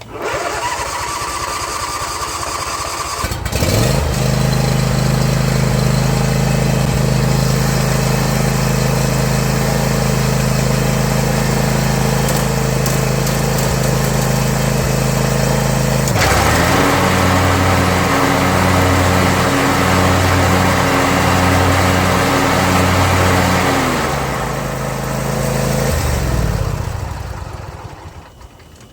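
John Deere Z335E zero-turn mower's engine cranked by its starter for about three seconds, catching and running steadily. About midway the sound changes to a pulsing beat as the mower blades are engaged to test a freshly replaced deck spindle, then the engine winds down and stops near the end.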